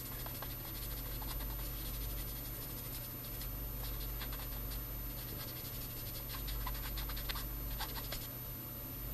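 Cotton swab rubbing back and forth over a small gloss-black resin model part, buffing metal polishing powder to a chrome shine: a faint, dry scratching of quick short strokes.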